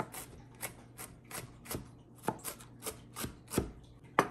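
Chef's knife chopping shredded cabbage into fine bits on a plastic cutting board: quick, slightly uneven strikes at about three to four a second, with a sharper knock near the end.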